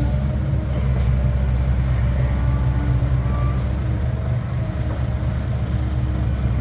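Heavy diesel machinery running steadily: a low engine drone, with fainter tones shifting above it.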